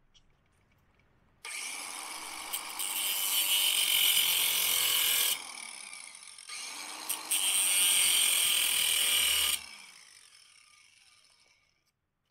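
DeWalt cordless angle grinder with a cutoff wheel run in two bursts, each turning sharply louder and hissier partway through as the wheel cuts partway into the stainless steel legs of a cooling rack. After the second burst the motor winds down and fades out.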